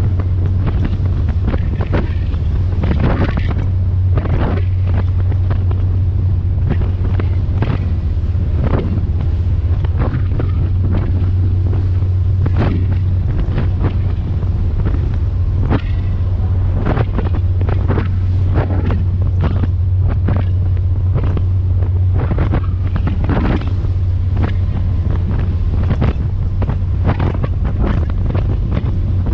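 Strong wind buffeting the microphone in irregular gusts on the deck of a moving passenger ferry, over the steady low hum of the ferry's engines.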